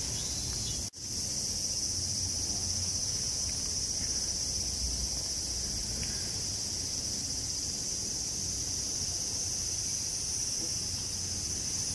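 Steady, high-pitched chorus of summer insects, with a faint low rumble underneath; the sound drops out for an instant about a second in.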